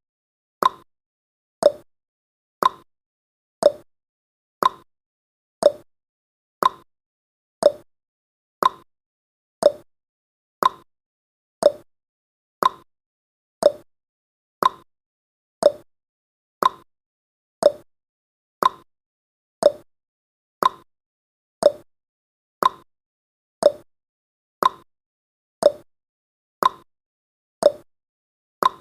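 Clock ticking sound effect, one sharp tick each second, evenly spaced.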